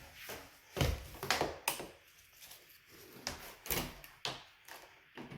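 Irregular handling knocks and clicks, about eight sharp ones spread through, as hard objects are handled and set down.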